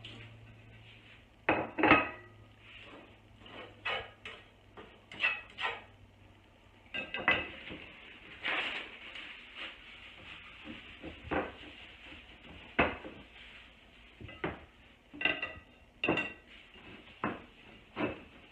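Ceramic plates and a spatula clattering against a frying pan and each other as scrambled eggs are dished up: irregular sharp clinks, each with a short ring.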